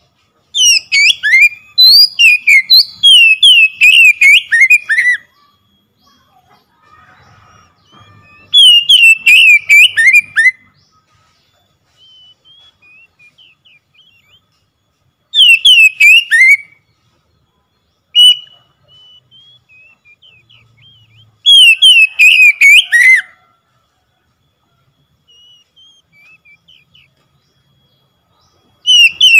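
Oriental magpie-robin singing loudly: five bursts of rapid whistled notes that slide down in pitch, the first about four seconds long and the others one to two seconds, with softer scattered song phrases in the gaps.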